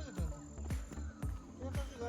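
Music with a steady beat: low drum thumps about twice a second under a bass line and melody.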